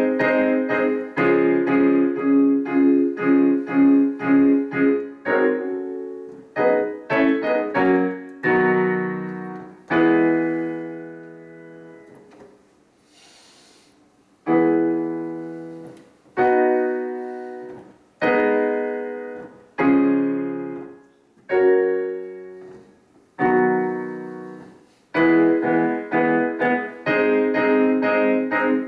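Digital piano playing chords: fast repeated chords at first, then a run of chords that dies away to a brief near pause about halfway, then single chords struck and left to ring about every two seconds, and fast repeated chords again near the end.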